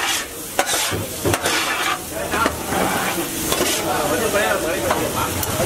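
Metal scraper scraping and pushing scrambled egg across a hot flat griddle in a series of quick strokes, over the steady sizzle of the egg frying.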